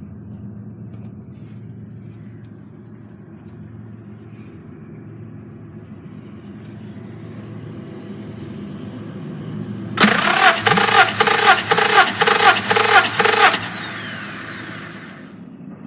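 Honda D17A engine turned over by its starter motor for about three and a half seconds, a loud whirring crank that pulses about twice a second, as when the engine is cranked for a compression test.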